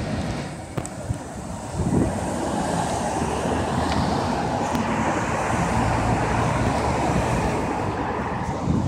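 Steady road traffic noise as an articulated LiAZ-6213.21 city bus approaches, its diesel engine a low hum under the tyre noise, with wind on the microphone.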